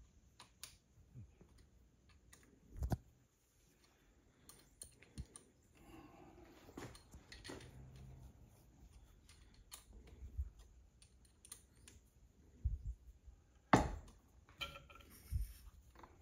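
Hex key turning and tightening the bolts of a steel handle plate on a lathe tailstock: scattered small metallic clicks and taps, with a few louder knocks, the loudest about three seconds in and near the end.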